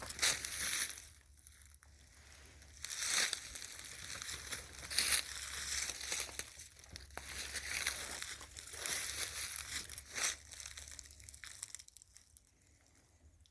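Footsteps crunching through the litter of a frozen winter forest floor, a step about every second, growing quieter and sparser near the end.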